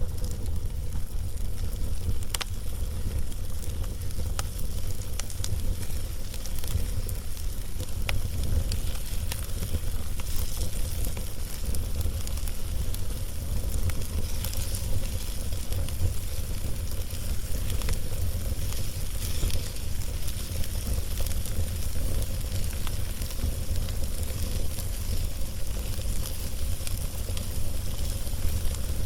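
Log fire crackling: scattered sharp pops over a soft hiss, with a steady low rumble underneath.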